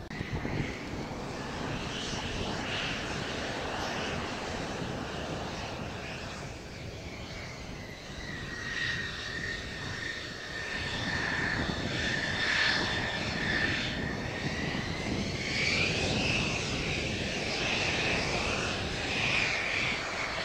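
Mitsubishi F-2B fighter's single F110 turbofan running at taxi power: a steady jet rush with a high whine that wavers up and down in pitch, growing louder in the second half as the jet taxis closer.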